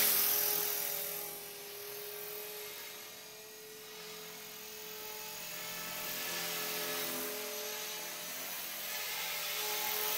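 Electric Blade 450 RC helicopter in flight: a steady whine from its motor and buzz from its rotor blades, fading as it flies off about a second in and growing louder again as it comes back near the end.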